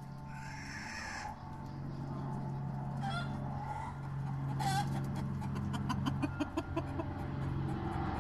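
Chickens clucking and squawking, with two short sharp calls about three and four and a half seconds in and a run of quick clicks after that. A low steady hum grows louder underneath.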